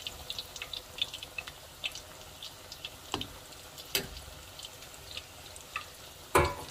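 Egg foo young patty deep-frying in hot oil in a wok: a steady sizzle with many small crackling pops. A few sharp taps come in the middle and one loud knock near the end, as the metal slotted spoons work the patty against the wok.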